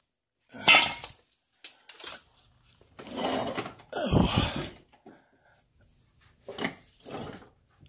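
Metal parts being handled by hand: a run of clanks and knocks with some scraping, the sharpest about a second in and a heavier thud about four seconds in.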